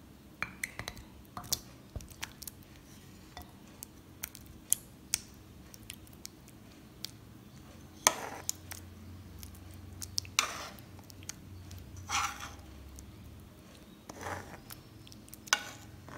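A serving spoon clinking and scraping against a pan and a ceramic bowl as thick chickpea curry is spooned across. There are scattered light clicks and a few longer scrapes.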